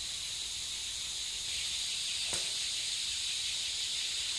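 Steady high-pitched chorus of forest insects, with a single short knock about two seconds in.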